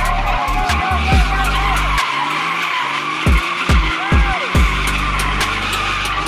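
A car's tyres squealing continuously as it spins donuts, with the engine revving hard; in the middle come four quick rev spikes in a row.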